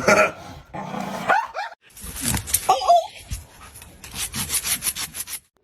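A dog gives one short vocal call, followed by a fast, even rasping scrape of about six strokes a second.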